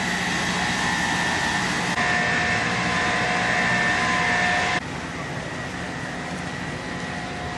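Engine-driven water pumps running steadily, with a high, even whine over the engine noise. The sound shifts suddenly about two seconds in, then drops a little before five seconds in to a quieter, steady noise.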